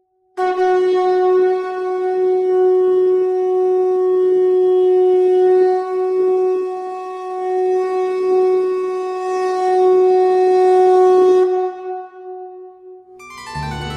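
Conch shell (shankha) blown in one long, steady note for about eleven seconds, then fading out. Music begins just before the end.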